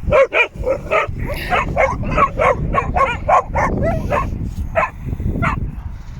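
Puppies yipping and barking in play: a rapid run of short, high-pitched yaps that stops about five and a half seconds in.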